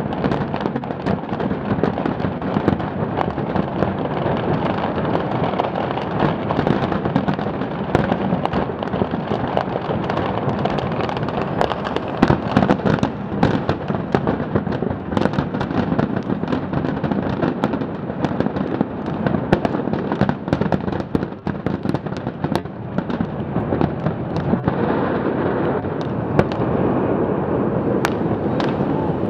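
Large aerial fireworks display: a dense, continuous barrage of bangs and crackles, the loudest shots a little before halfway through, easing slightly near the end.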